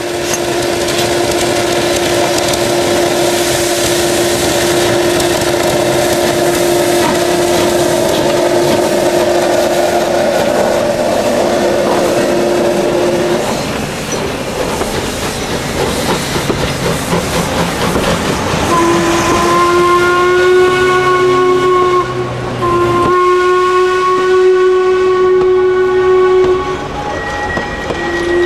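Steam whistle of the 1946 Đuro Đaković-built narrow-gauge steam locomotive 83-180 blowing one long steady blast over the hiss of escaping steam for about the first half. The engine then works hard with steam and exhaust noise as it pulls away. In the last third the whistle sounds again in two long blasts while the carriages roll past.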